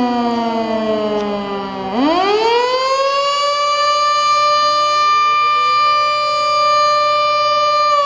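Federal Signal Model 2 electromechanical fire siren cycling through its test: its tone slides down for about two seconds, then winds back up sharply and holds a steady high pitch. About halfway through, a second, fainter Model 2 siren begins winding up underneath it.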